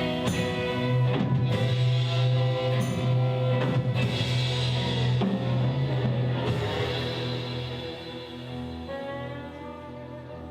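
Blues band playing live, an instrumental passage without singing, getting quieter from about eight seconds in.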